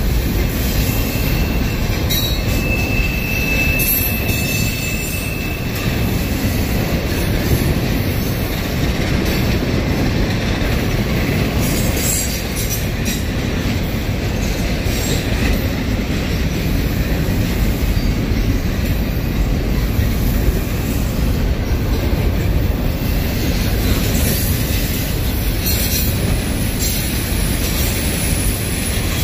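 Double-stack intermodal freight train rolling past at close range: a steady, loud rumble of steel wheels on rail with no pauses. A faint, brief wheel squeal comes about three seconds in, and there are a few sharp clicks.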